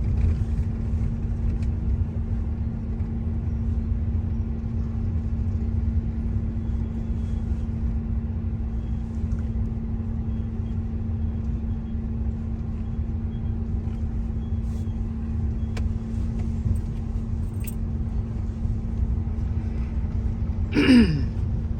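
Steady low rumble of a truck driving, heard inside the cabin, with a steady hum underneath. About a second before the end, a short sound falls in pitch.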